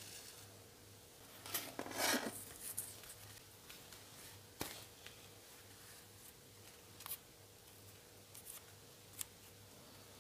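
Hand-stitching leather: thread drawn through the stitching holes with a rasping pull about two seconds in, followed by a few light ticks as the leather piece is handled.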